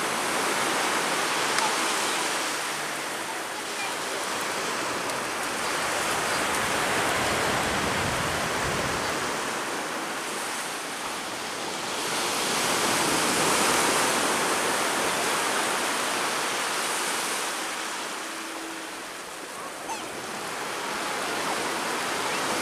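Sea surf washing onto a beach: a steady rushing noise that swells and eases slowly over several seconds at a time.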